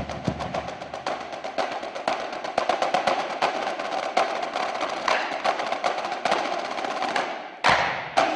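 Marching drumline of snare, tenor and bass drums playing a fast, dense run of strokes, which breaks off shortly before the end into two loud accented hits.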